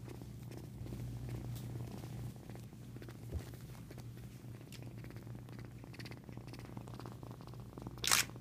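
A young Florida panther kitten purring steadily with a low, rapidly pulsing hum. A brief scuffing burst comes near the end.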